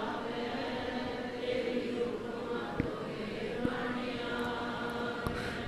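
A congregation singing a Gurbani refrain back in unison in call-and-response, faint beside the lead singer's amplified voice.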